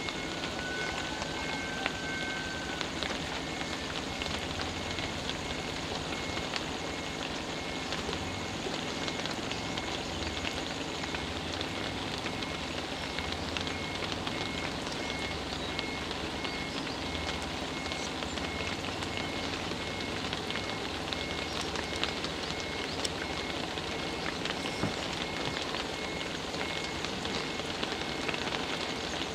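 Steady rain falling on a wet road and roadside trees, with a low engine rumble underneath from a vehicle idling.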